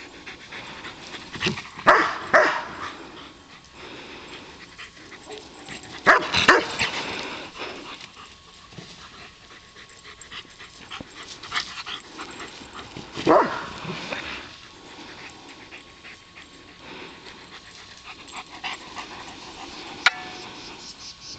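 A dog barking in short bursts: two barks close together about two seconds in, another pair about six seconds in, and a single bark near the middle.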